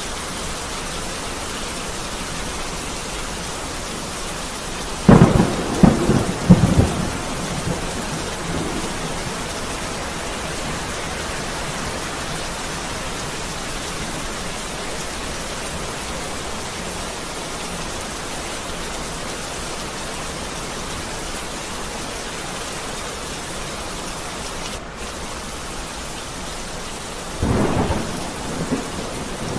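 Steady rain falling, with a sudden burst of thunder cracking several times about five seconds in and a weaker clap of thunder near the end.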